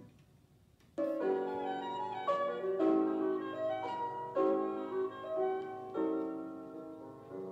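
Piano music playing through the DIGITNOW all-in-one stereo's speakers from a USB stick, starting about a second in after a short gap as the unit skips to the next track.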